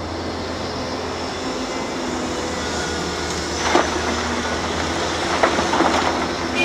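Large CASE CX750 hydraulic excavator running steadily as it dumps a bucket of broken rock into an articulated dump truck. Rock clatters into the truck bed about four seconds in and again around five and a half seconds.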